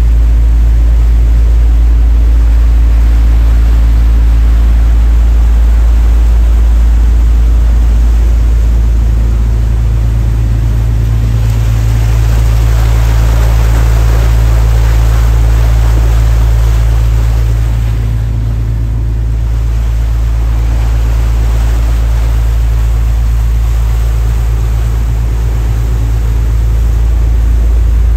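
Sightseeing boat's engine droning steadily underway, heard from aboard, with a rushing noise that swells around the middle and eases briefly a little past halfway.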